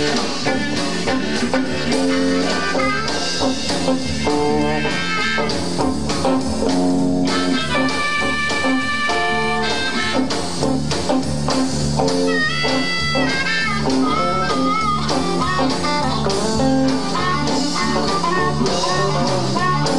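Live electric blues band playing an instrumental passage: electric guitar and drums under a steady beat, with amplified blues harmonica played cupped to a vocal microphone. Long held, bending notes come near the middle.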